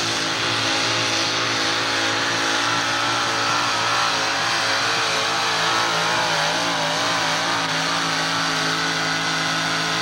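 Modified pulling tractor with several exposed engines running flat out under load as it drags the sled. The engine note holds steady throughout, wavering slightly in the middle.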